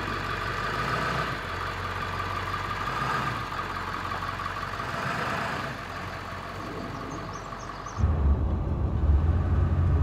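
A 7.3 diesel pickup's engine running as the truck pulls away slowly. About eight seconds in it gives way to the louder, deeper drone of the engine and road inside the cab while driving.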